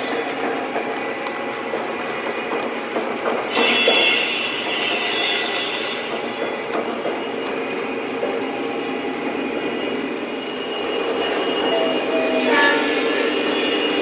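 O scale Lionel model trains running on three-rail track: a steady rolling rumble and clatter of wheels, with higher ringing tones coming in about four seconds in and again near the end.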